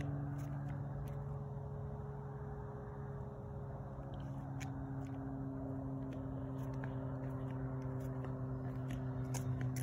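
A steady low mechanical hum with a slight, slow drop in pitch, over a faint rushing noise, with a few faint clicks.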